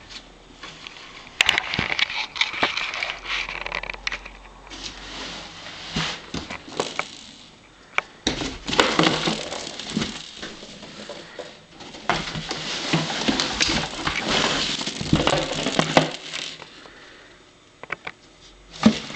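A cat scrabbling and clawing about inside a cardboard box: long bursts of scratching and rustling cardboard with scattered knocks, quieter for a moment near the end.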